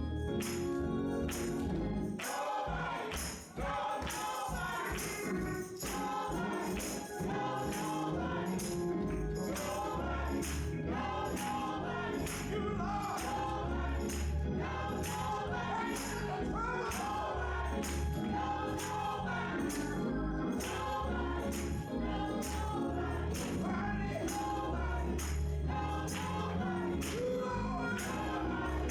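Gospel song sung by a choir, with a tambourine beating time and a band with a strong bass line underneath.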